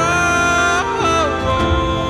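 Background song playing: a melody line that holds and bends between notes over a band accompaniment.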